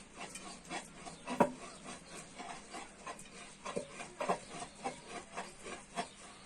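A string of irregular clicks, knocks and rubbing, the loudest about a second and a half in, with another cluster around four seconds in.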